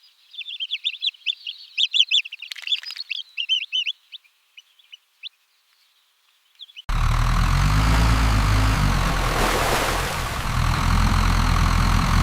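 Ducklings peeping in rapid high chirps for about four seconds, then a short silence. About seven seconds in, a loud steady engine-like drone with a low hum starts abruptly.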